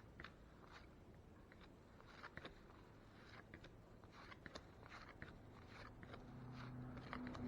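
Faint, scattered clicks and light rustles of baseball cards being handled and flipped through.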